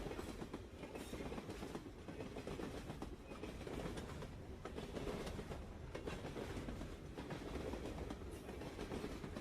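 Train wheels clattering over the rails under a steady low rumble of a moving passenger train.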